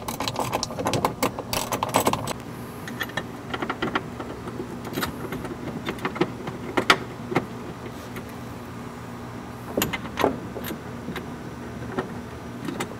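Irregular metal clicks and clinks of a hand ratchet wrench and 1/4-20 bolts with lock washers being run down into a drawer module's feet, with a steady low hum underneath.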